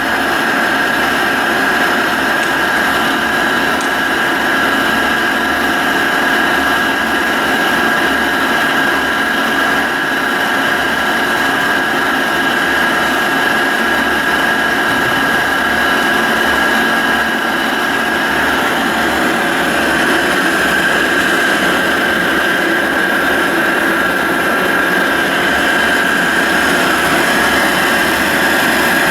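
Carlton Model 4A radial arm drill press running under power: a steady motor and gearbox whine with a strong high tone that holds throughout.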